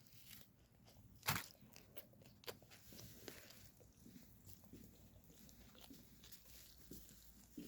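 Near silence with faint scattered clicks and small rustling noises, and one sharper click about a second in.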